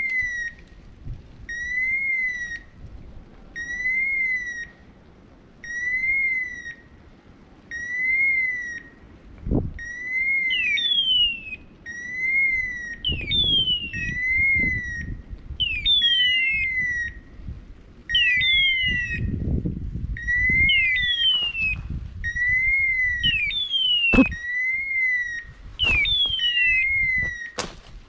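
Electronic beeper collar on a hunting Brittany dog, sounding a short rising-then-falling beep about every two seconds. From about ten seconds in, a second, falling chirp joins it and repeats about once a second. Brush rustling and a few sharp twig snaps come between the beeps.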